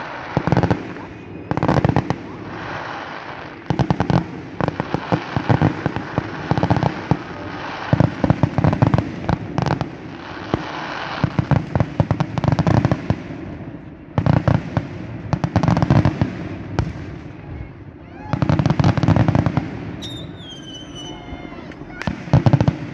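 Fireworks display: salvos of loud aerial shell bursts and dense crackling, each lasting a second or two, with short lulls between them. High falling whistles sound about twenty seconds in.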